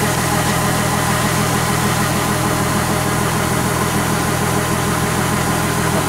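Kubota DC-70G combine harvester running steadily, its diesel engine and machinery making a constant drone, while threshed rice grain pours from its bagging chute into a sack with a steady hiss.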